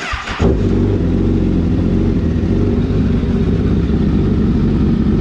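Sport motorcycle's engine starting and catching within about half a second, then idling steadily.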